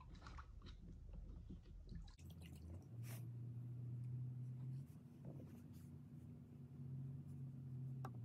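Faint wet squishing and rubbing of a damp sponge wiped over a clay teapot, with a light knock near the end as the pot is set down on a banding wheel. A low steady hum comes and goes underneath.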